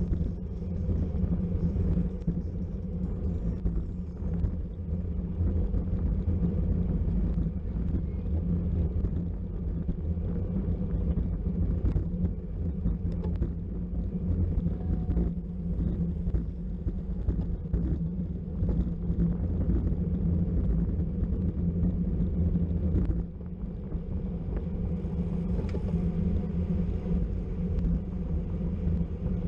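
Wind rushing over the microphone of a camera riding along in a bicycle criterium, heard as a steady low rumble, with a brief dip about three quarters of the way through.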